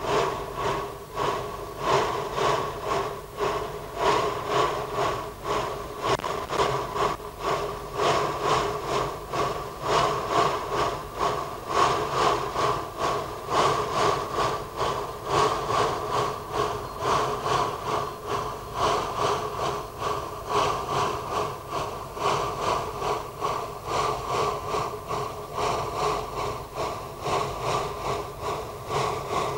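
Wood-fired narrow-gauge steam locomotive working hard up a grade, its exhaust beating evenly at about two chuffs a second.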